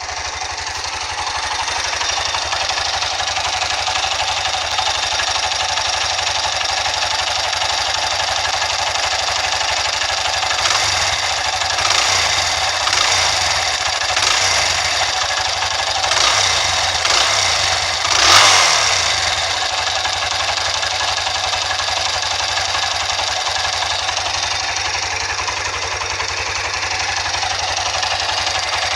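Honda CBX 200 Strada's single-cylinder engine running steadily, blipped a few times in the middle with the last and largest rev about 18 seconds in. It runs with a mechanical noise that the owner suspects may be a fault in the engine.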